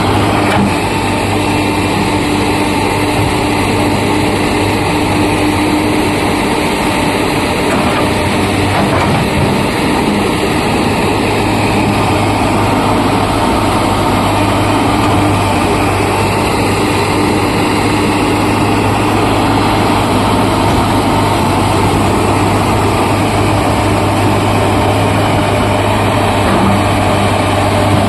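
Hitachi hydraulic excavator's diesel engine running steadily and loudly.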